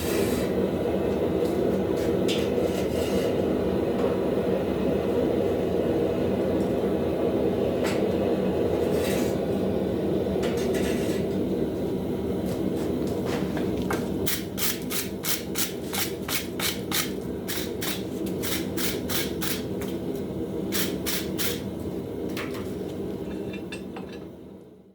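Hammer blows on hot steel in a guillotine fullering tool: a few single strikes, then a fast, even run of about four blows a second for several seconds in the second half. A steady low rushing noise runs underneath, and everything cuts off suddenly near the end.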